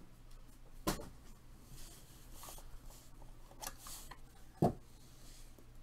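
Trading cards in rigid plastic top loaders being handled in a clear plastic box: soft rubbing and sliding, with two sharp plastic clicks, one about a second in and one later.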